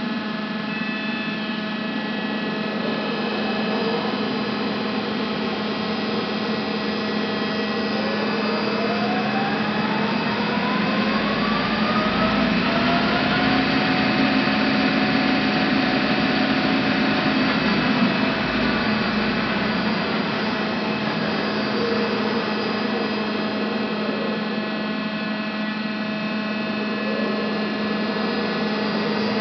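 TOS SUA 125 heavy lathe running, with a steady hum throughout. Its spindle drive's whine rises as the chuck speeds up about a third of the way in, holds louder for a few seconds, then falls away as the spindle slows again.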